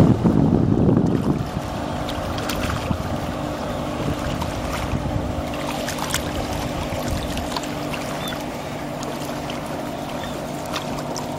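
Motorboat's outboard engine running at a steady hum over the rush of water, with wind rumbling on the microphone for about the first second.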